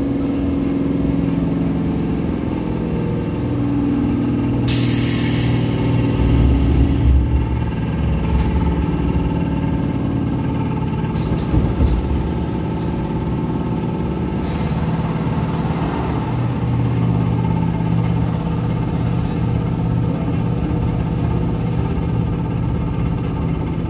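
On-board running sound of a Seibu 2000 series electric train: a steady low hum from the traction motors and gears, shifting slightly in pitch, with a loud hiss about five seconds in that lasts about two seconds and a few faint clicks later. The train runs with a flat spot on a wheel.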